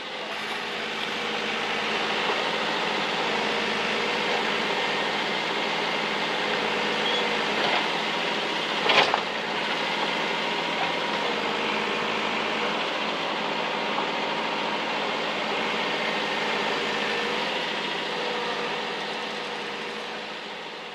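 Steady engine noise that fades in at the start and fades out near the end, with one sharp knock about nine seconds in.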